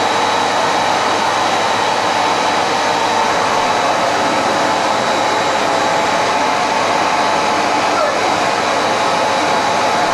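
Vacuum cleaner running steadily: an unbroken rushing noise with a steady high whine.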